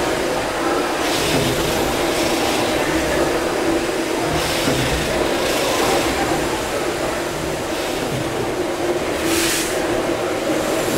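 Gimson steam beam engines running together: a steady mechanical rumble with a hiss of steam now and then, loudest about nine seconds in.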